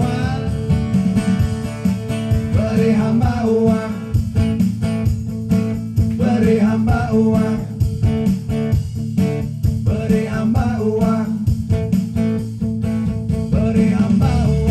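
Live band music: an acoustic guitar and a Korg keyboard play a song, with a voice singing over them.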